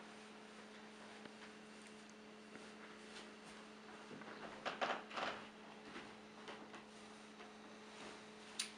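Faint steady electrical hum at a low, even pitch, with a few brief soft sounds of movement about halfway through and a sharp click near the end.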